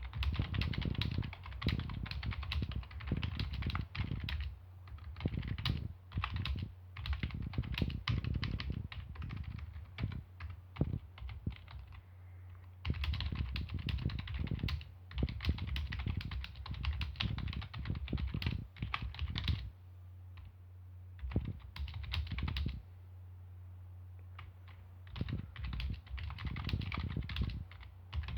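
Typing on a Motospeed K70 non-mechanical (membrane) keyboard: quick runs of key presses in bursts, broken by short pauses, over a steady low hum.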